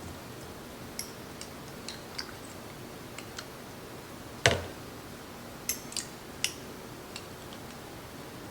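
A kitchen utensil clicking and tapping against a glass jar and bowl while candied jalapeños are spooned out. There is one louder knock about four and a half seconds in and a few sharp clinks soon after.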